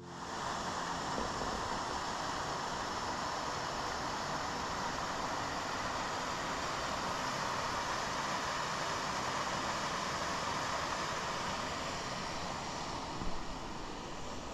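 Steady rush of water from a small waterfall cascading down a rock channel, with a short knock near the end.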